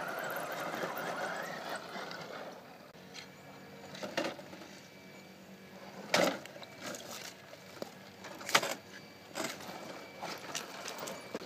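Electric drive motor and gearbox of a Tamiya CC-01 radio-controlled Unimog whining for the first two seconds, then dying away as the truck crawls over rocks. After that, a few sharp knocks from the truck striking the rocks, the loudest about six and eight and a half seconds in.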